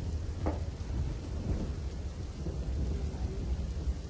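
Steady low rumble of outdoor ambience, with faint indistinct sounds above it.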